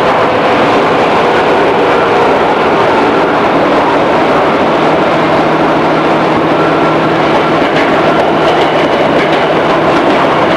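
Interior running sound of a JR East 211 series electric multiple unit, heard inside the motor car (MoHa 210): a steady, loud rumble of traction motors and wheels on rail, with a faint steady hum and a few light clicks in the second half.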